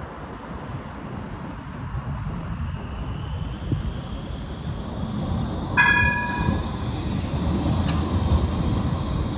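Badner Bahn tram-train running through the station, its wheels and running gear giving a steady low rumble. A short high-pitched tone sounds about six seconds in.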